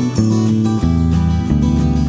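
Background music led by a strummed acoustic guitar, its chords changing every half second or so over a steady bass.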